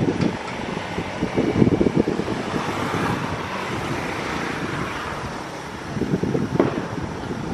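Wind rumbling and buffeting on the microphone, with a passing vehicle whose hiss swells and fades in the middle. A short knock comes near the end.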